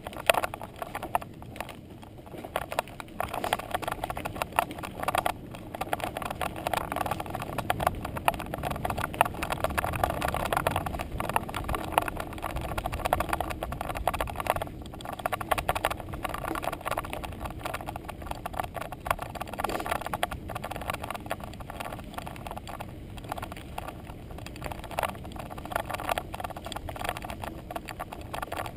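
Bicycle riding over a gravel and dirt trail: tyres crunching and the bike and camera mount rattling over bumps, a steady irregular clatter.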